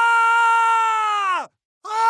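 A person screaming in pain: one long, high scream held on a steady pitch that drops away and stops about a second and a half in, then a new scream starts just before the end.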